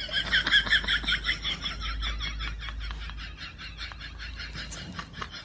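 An animal's rapid, repeated high-pitched call, about nine or ten pulses a second, slowly fading.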